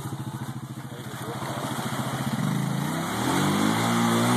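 Honda Rancher 350 ATV's single-cylinder engine lugging at low revs under load as the quad climbs a steep muddy bank, then revving up from about two seconds in, rising in pitch and loudness and wavering as the throttle works against the climb.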